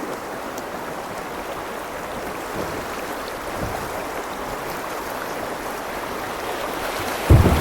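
Fast river water rushing steadily around a kayak running rapids, with a loud low thump near the end.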